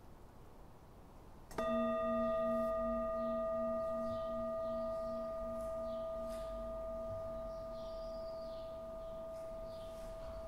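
Singing bowl struck once about a second and a half in, then ringing on with a slowly fading tone of several steady notes, its lowest note pulsing about two to three times a second. The strike opens a period of silent prayer.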